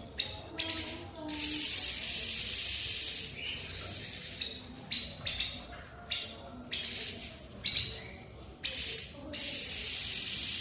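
Grey-headed babbler calling: a string of short, sharp high notes broken by two long, harsh hissing calls of about two seconds each, one a little over a second in and one near the end.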